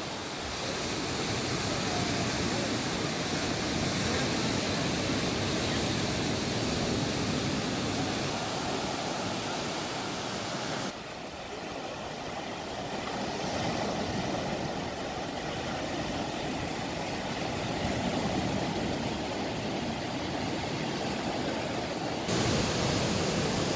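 Steady rush of surf breaking on a sandy beach, mixed with wind noise. The sound shifts abruptly twice, about halfway through and near the end.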